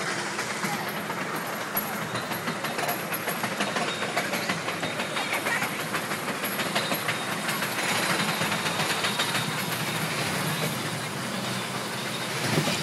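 Dahlonega Mine Train roller coaster cars running along the track, wheels and train clattering in a steady rapid rattle, with a louder jolt near the end.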